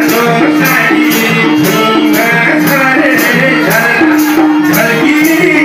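Nepali folk song (lok dohori / teej song) music with a steady beat of light shaker-like percussion under a melody line.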